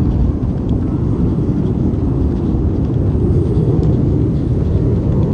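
Low, uneven rumble of wind buffeting a small handheld gimbal camera's microphone while running.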